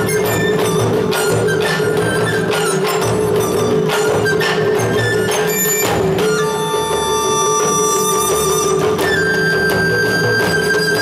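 Live drum-ensemble music: many drums struck in a quick, dense rhythm, with flutes holding long notes from about halfway through.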